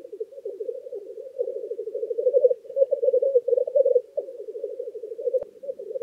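Male black grouse giving their bubbling lek song (rookooing): a continuous, low, rapidly pulsing cooing that swells and fades in phrases about a second long.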